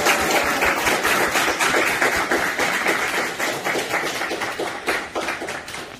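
Audience applauding: a dense patter of many hands clapping, which thins and fades out near the end.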